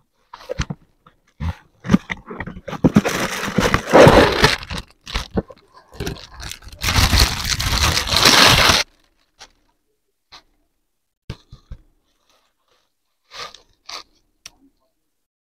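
Unboxing handling noise: the cardboard box is scraped and rustled, then loud crinkling of the thin plastic bag for a couple of seconds as the lamp is unwrapped. After that there are only a few light clicks and taps as the plastic lamp is handled.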